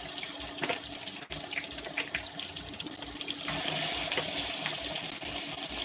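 Yellowfin tuna steak frying in hot oil in a nonstick wok, sizzling with sharp crackles and spits of oil. About three and a half seconds in the sizzle jumps louder and hissier as a second steak goes into the pan.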